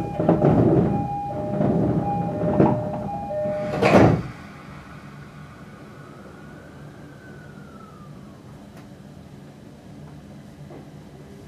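Two-tone door chime of an E231-series train repeating as the doors close, ending in a loud thud of the doors shutting about four seconds in. After that comes the low steady rumble of the train.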